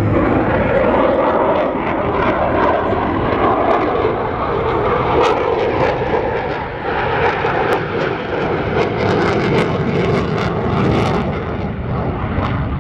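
An F-22 Raptor's twin Pratt & Whitney F119 turbofans make a loud, steady jet noise as the fighter flies by, with no distinct whine or tone standing out.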